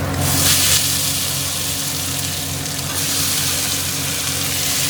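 Marinated chicken going into hot mustard oil with whole spices: a burst of sizzling a moment in, settling into steady frying, over a steady low hum.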